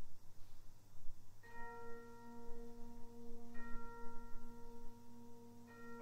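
Opening of a wind band's piece: after a short pause, a soft held note with a bell-like ring enters about a second and a half in, and further held notes join it, over a steady low hum.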